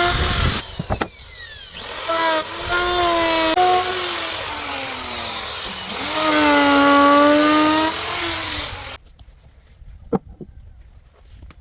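Electric woodworking power tool running on wood: a motor whine with heavy hiss that sags in pitch as it bites into the cut and climbs back, with a brief break about a second in. It cuts off suddenly about nine seconds in, followed by a couple of faint knocks.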